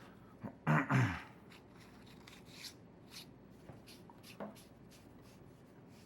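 Small handling noises as a battery is put into an aluminium flashlight tube and the cap threaded on: faint rubbing and light clicks, with one short louder sound about a second in.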